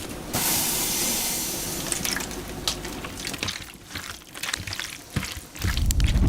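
Water pouring for about a second and a half, then scattered clicks and knocks of handled utensils; near the end a loud low rumble sets in.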